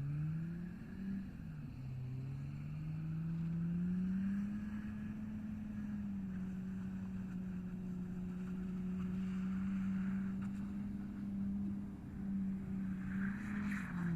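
A vehicle engine running, its pitch dipping and rising in the first couple of seconds, then climbing and held steady at an even note.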